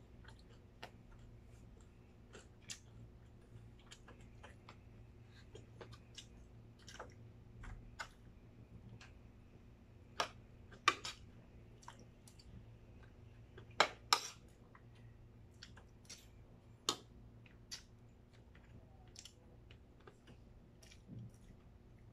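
Close-up eating sounds: chewing and mouth clicks on breaded fried chicken, with scattered sharp clicks of a spoon and fork against a plate, several louder clinks around the middle.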